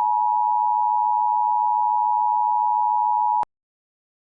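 Emergency Alert System two-tone attention signal, held steady and cutting off suddenly about three and a half seconds in, marking the start of a new alert message.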